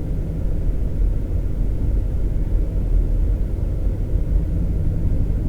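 Steady low rumble of a truck driving, heard inside the cab: engine and tyre noise with no breaks.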